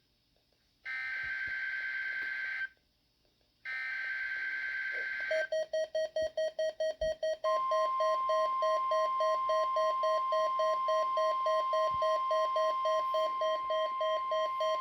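A Midland WR-300 weather radio receiver playing a NOAA Weather Radio Required Weekly Test. First come two more bursts of the digital SAME header's buzzy data tones, each under two seconds with a one-second gap between them. About five seconds in, the receiver's alarm starts beeping rapidly, and a couple of seconds later the steady, single-pitched weather radio warning alarm tone joins under the beeps.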